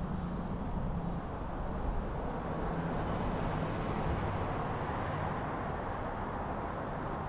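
A car driving steadily at road speed: continuous tyre and road noise with a low engine hum underneath.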